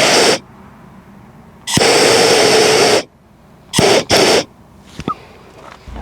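Pneumatic air hammer fired in short bursts, a longer run of about a second and a half after a brief one, then two quick blasts close together, each a loud hissing rattle that starts abruptly.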